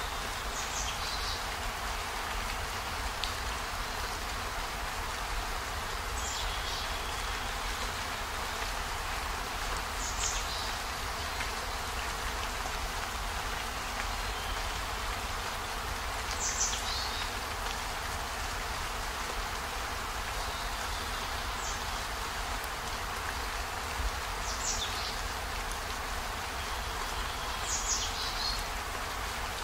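Steady rain falling, an even hiss, with a brief high-pitched sound standing out every four to six seconds.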